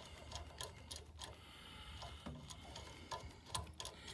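Faint, irregular metallic ticks, about three a second, as a valve-core tool turns a Schrader core into an HVAC service port, the core reluctant to thread in.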